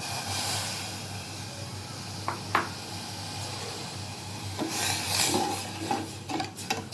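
Kitchen utensils scraping and rubbing against a bowl, with two short clinks a little over two seconds in and a louder stretch of scraping about five seconds in.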